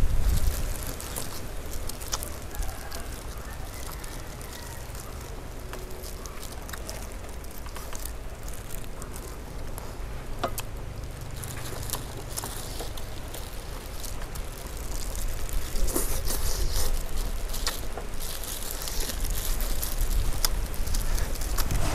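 Small clicks and crackles of roast chicken being torn apart with plastic-gloved hands and chewed, over a steady low rumble of wind on the microphone.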